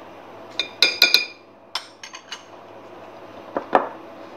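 Spoon clinking against a glass mixing bowl: several sharp clinks with a brief ring, bunched about a second in and again near the end, as spoonfuls of flour are knocked into cake batter.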